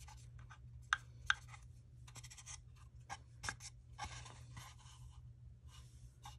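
Faint scratchy brushing of a water brush's bristles working distress crayon into the paper-lined corners of a small craft box, in short strokes, with a few light clicks as the box and brush are handled.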